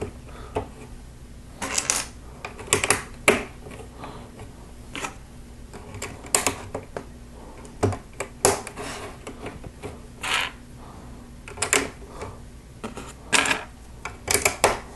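Plastic Lego plates and bricks clicking and tapping as they are handled and pressed onto studs. The clicks come irregularly, a few at a time, with short gaps between them.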